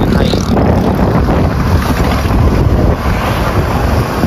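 Wind buffeting the microphone on a moving motorcycle: a loud, steady, gusty rumble, with the ride's road and engine noise mixed in.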